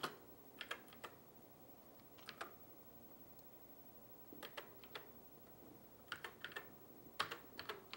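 Faint keystrokes on a Commodore SX-64 keyboard: single key clicks and short clusters of a few, typed slowly with pauses between.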